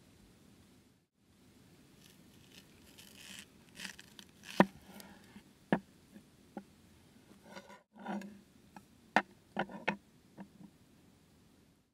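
Close-up handling noises: a run of sharp clicks and taps mixed with scraping and rustling, starting about three seconds in, with the loudest knock about halfway through.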